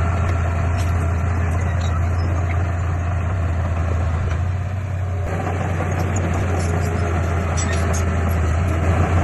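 Heavy diesel engine of earthmoving equipment running steadily: a constant low drone over mechanical noise.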